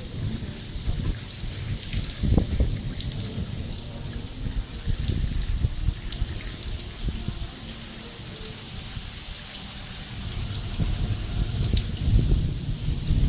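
Heavy thunderstorm rain beating down, a dense hiss full of sharp pattering impacts, with low rumbling surges that ease off in the middle and build again near the end.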